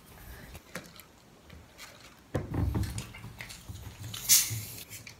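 Close-up eating sounds: wet chewing and small mouth clicks of people eating pizza. A brief low hum starts suddenly about halfway, and a short sharp hiss of breath about four seconds in is the loudest sound.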